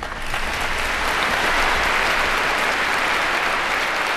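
Large audience applauding, the clapping swelling over the first second and then holding steady.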